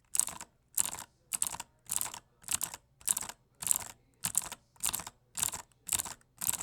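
Cherry MX Blue clicky switches on a Magegee MK Star mechanical keyboard, the unlubed F-row keys pressed one after another at an even pace of just under two a second, about a dozen crisp clicks.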